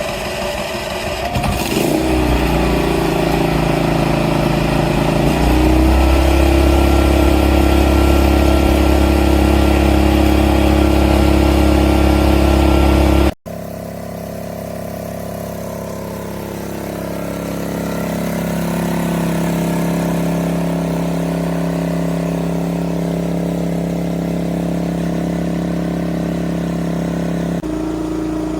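Westinghouse 4000-watt portable inverter generator engine running loudly, its engine speed stepping up twice in the first few seconds. After an abrupt cut it runs steadily at a different pitch, changing again near the end.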